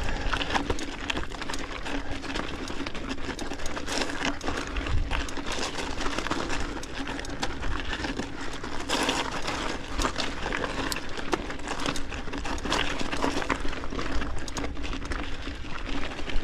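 Mountain bike climbing a steep, loose rocky trail: tyres crunching over rock and gravel, and the bike rattling with many small clicks and knocks, over a faint steady hum.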